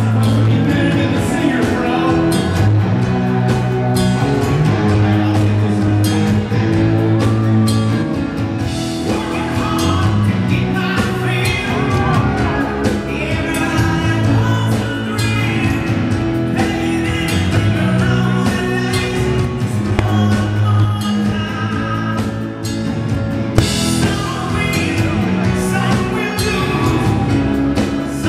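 Live rock band playing a song: a male lead vocal over drums and electric guitars.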